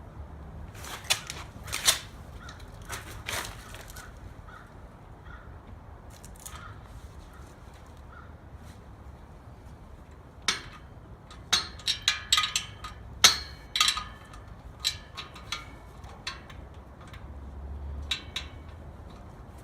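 Sharp metallic clinks and clacks of hand tools on the bolts of an LS1's clutch pressure plate as they are loosened with socket and wrench: a few about a second in, then a rapid cluster from about ten seconds in.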